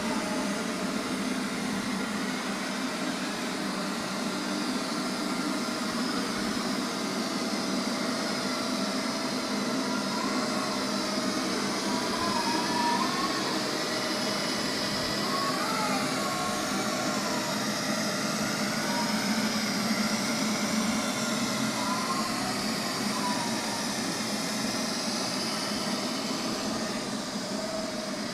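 Robot vacuum cleaner running steadily, its motor and brushes making a continuous whir.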